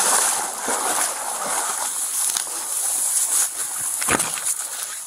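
Dense reeds and tall grass rustling and scraping against a body-worn camera as the wearer pushes through, with a few knocks, the strongest about four seconds in.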